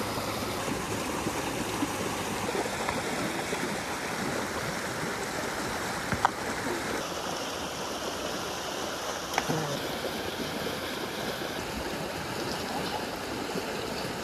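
Shallow, fast river rushing over stones and gravel bars: a steady wash of water noise, with a couple of brief sharp clicks about six and nine seconds in.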